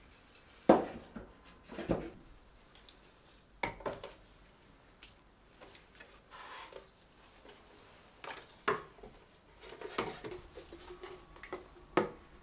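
Ceramic plant pots set down one after another on a slatted wooden shelf: about six separate clunks a second or a few seconds apart, with quieter handling and shuffling in between.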